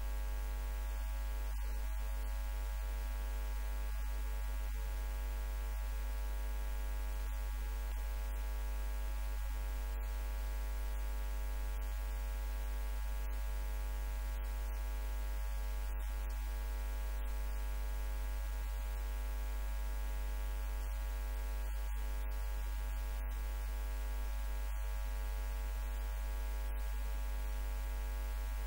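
Steady electrical mains hum with many overtones, unchanging throughout; no speech is heard over it.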